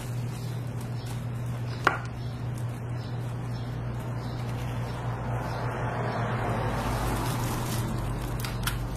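Metal ice cream scoop scraping and digging into a steel tub of chocolate ice cream, with one sharp click about two seconds in. A steady low hum runs underneath.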